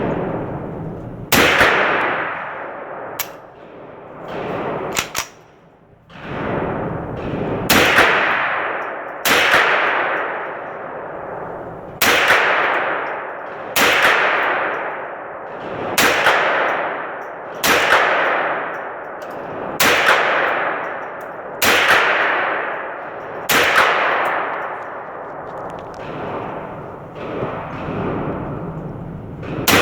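.223 rifle shots at an indoor range, each crack followed by a long ringing echo off the walls. One shot comes about a second and a half in, a couple of small sharp clicks follow, then a steady string of shots about every two seconds.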